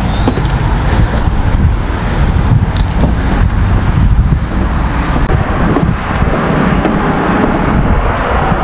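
Wind buffeting the camera microphone in a loud, uneven rumble, mixed with the steady noise of road traffic.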